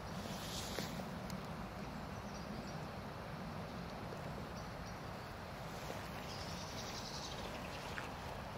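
Pyroland Giga Smoke 300 white smoke flare burning on the ground, giving off a steady, even hiss as smoke pours from the canister.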